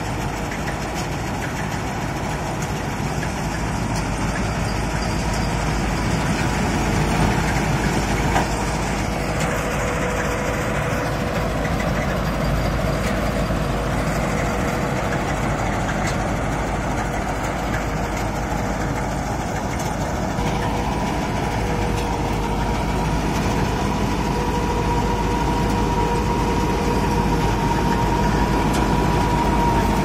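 Mahindra combine harvester running under load while cutting standing rice: a steady engine and machinery drone with a thin whine above it that goes higher in pitch past the middle, growing louder as the machine comes closer.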